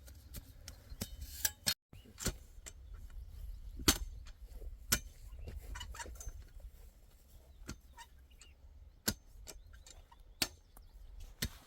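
Scattered sharp knocks and clicks at irregular intervals, the loudest about four seconds in: tools striking stony ground as fence-post holes are dug.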